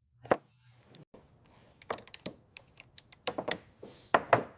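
Irregular light clicks and knocks of hand tools and metal parts being handled, with a few louder knocks near the end.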